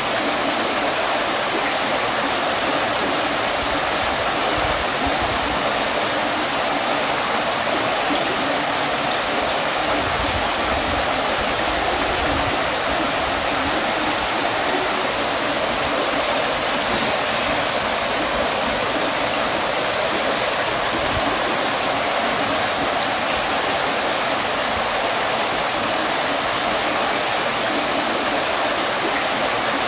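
Water fountain splashing steadily, the falling water making an even rush. One brief higher tick comes about halfway through.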